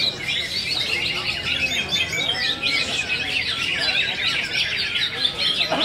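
Several green leafbirds (cucak ijo) singing at once in a dense, unbroken tangle of rapid chirps and whistles.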